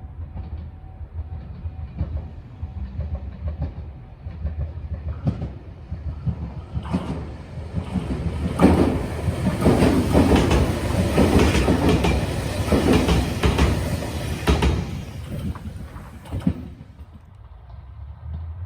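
JR Shikoku 8600 series electric train approaching and running past, its wheels clacking over the rail joints. It is loudest for about eight seconds in the middle, then dies away.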